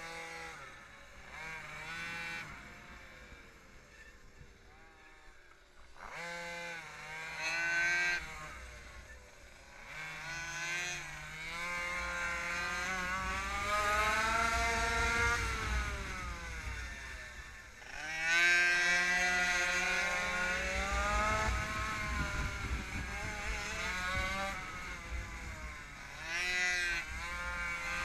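Minimoto (pocket bike) engine heard from onboard, revving up and down lap after lap: its pitch climbs in long sweeps under acceleration and drops sharply several times as the throttle is closed for corners. A low wind rumble on the microphone runs underneath.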